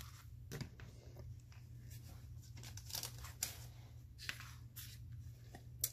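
Faint rustling and light clicks of crafting supplies being handled while the glitter containers are swapped, over a low steady hum.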